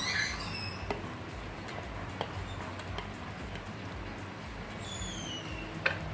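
A bird chirps twice, each a short falling call, once at the start and again about five seconds in, over a steady low hum with a few light clicks.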